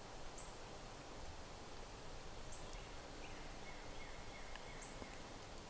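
Quiet woodland ambience with faint bird calls: a few brief high chirps every couple of seconds and a short run of thin sliding whistled notes in the middle.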